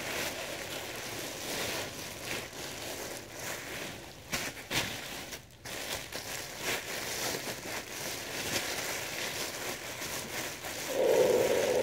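Thin plastic bags and plastic wrapping crinkling and rustling in irregular crackles as a heavy wrapped package is unwrapped by hand.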